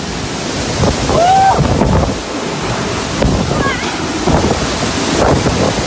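Strong typhoon wind gusting and buffeting the microphone, with heavy rain, in a loud, fluctuating rush.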